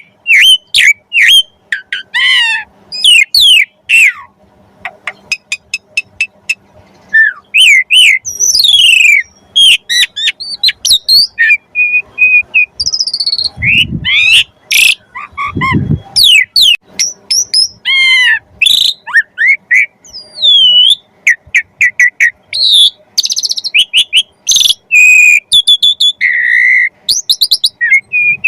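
Asian pied starling (jalak suren) singing: a loud, fast, varied run of whistles, chirps and sweeping up-and-down notes broken by short pauses, with two low rumbles about halfway through.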